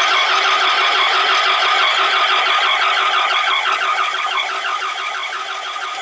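Dodge Ram 2500's V10 engine cranking over on the starter without catching, a steady rhythmic churn that fades out near the end: a no-start with no spark at the plugs.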